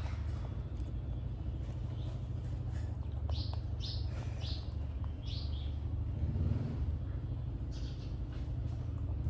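Four short, high chirps in quick succession over a steady low rumble.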